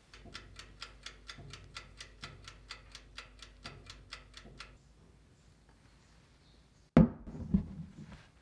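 Mechanical oven timer ticking rapidly and evenly, about five ticks a second, over the hum of the running oven; both stop together. About seven seconds in, a metal baking tray is set down on a wooden table with a heavy knock, and a second knock follows half a second later.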